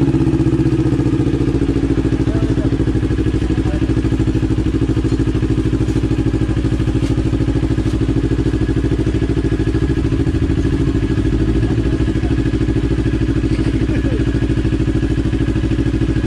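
CFMOTO NK400's parallel-twin engine idling steadily through an aftermarket exhaust muffler, just after being started.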